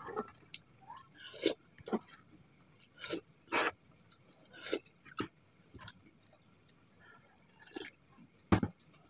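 Short, scattered slurps and mouth sounds of someone eating noodle-soup leftovers, sipping broth from a spoon, about a dozen separate sounds with gaps between them, and a heavier bump near the end as the bowl is handled.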